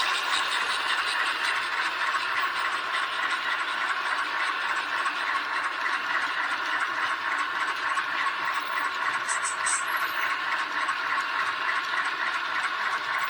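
H0-scale model train running along the track, with a steady whirr and rattle from the locomotive's motor and the wheels on the rails. A few light clicks come about nine to ten seconds in.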